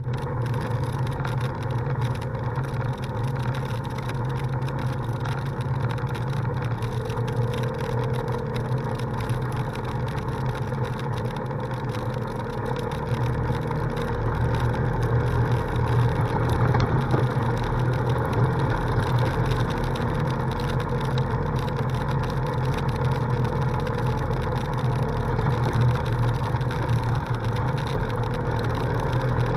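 Polaris RZR side-by-side's engine running steadily as it drives along a dirt road, a low drone that gets a little louder about halfway through.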